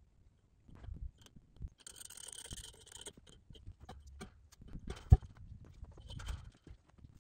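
Scattered knocks, clicks and scrapes, with one sharp, loud knock about five seconds in.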